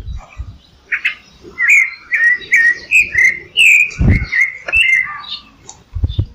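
A songbird singing a fast run of short chirping, whistled notes, roughly two a second, with sharp high clicks between them and a few low thumps, the loudest about four seconds in.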